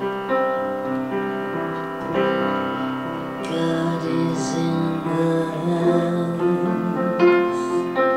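Piano playing on its own between verses of a live song, a run of held chords and notes.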